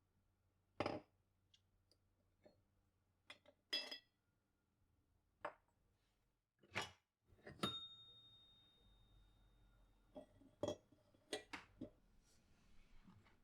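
Quiet, scattered knocks and clinks of cups and dishes being handled and set down while tea is laid out; one clink about two-thirds through rings on clearly for a couple of seconds, like glass or porcelain.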